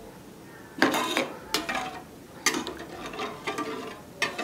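Metal spatula stirring and scraping in a stainless steel frying pan of thin sauce: a run of uneven clinks and scrapes, each with a short metallic ring.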